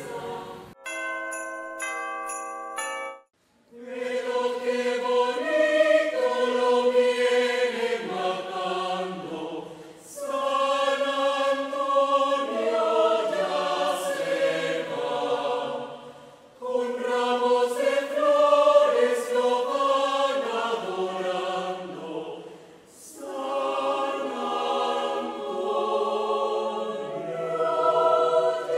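A short run of bell-like chime notes, then, after a brief pause, a choir singing in several parts in phrases with short breaks between them.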